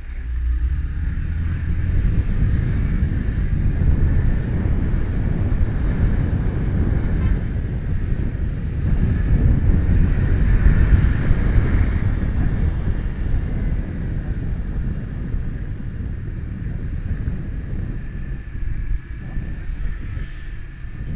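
Wind buffeting the action camera's built-in microphone while riding a motorcycle in traffic, a heavy low rumble over the bike's running, swelling about ten seconds in.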